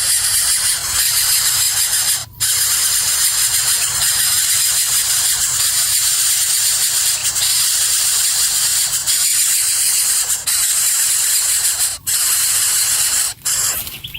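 Loud, steady high-pitched hissing noise, broken by brief dropouts about two seconds in and twice near the end.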